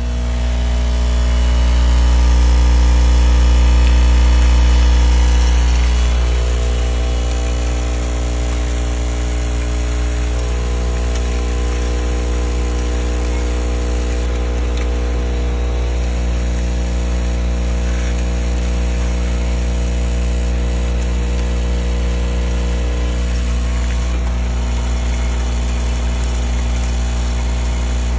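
Sachet counting machine running: its rotary bowl feeder and conveyor motors give a steady hum with several steady tones. The low hum is louder for the first few seconds and eases off about six seconds in.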